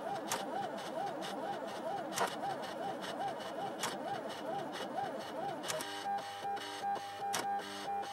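Silhouette electronic die-cutting machine cutting out a sheet, its motors whining in a repeated rise and fall about twice a second, with a few sharp clicks. A little before six seconds in, this changes to steady tones pulsing in short, quick beats. The footage is sped up, so the machine runs faster than in real time.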